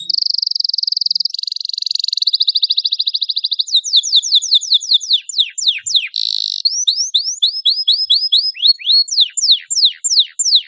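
Domestic canary singing: a fast buzzing trill for the first few seconds, then runs of quick whistled notes that sweep downward, several a second, with a short buzzy note in the middle.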